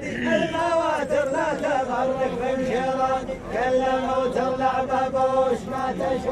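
A row of men chanting a poet's verse back in unison, dimmah style, on long held notes that bend at the end of each phrase. There is a short break about three and a half seconds in.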